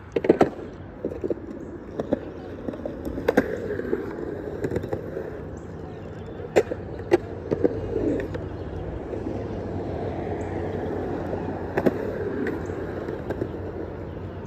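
Skateboard with hard 97A urethane wheels rolling in a concrete bowl, a steady rumble. A sharp clack comes right at the start as the board drops in, and a few more sharp clacks of the board come during the run.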